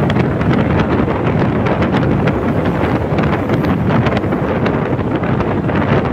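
Wind buffeting a microphone on a scooter moving at about 55–60 km/h: a loud, steady rush with constant gusty thumps.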